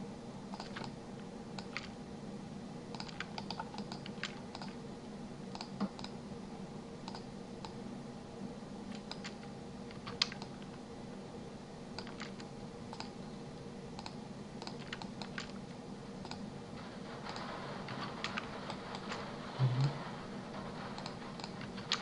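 Scattered clicks of a computer keyboard and mouse over a steady low hum. A short low thump comes near the end.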